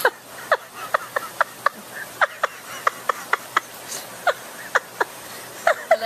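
A large green macaw making a quick, irregular string of short chirps, each one sliding down in pitch, a little more than two a second.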